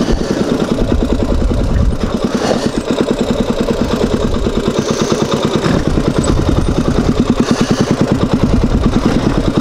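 Honda ATV engine running at low revs with a steady, even rhythm of firing pulses as the quad creeps down a rocky trail.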